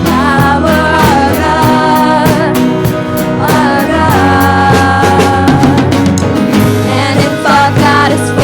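A worship band playing a rock-style song: drums keeping a steady beat under bass and a sustained melody line.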